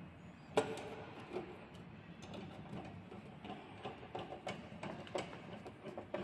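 Hand screwdriver driving screws through a metal folding bracket's mounting plate into a wooden panel. There is a sharp knock about half a second in, then a run of small irregular clicks and ticks.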